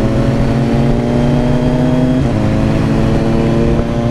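BMW S1000RR's inline-four engine pulling under throttle. Its pitch climbs slowly, dips at an upshift about two seconds in, then climbs again.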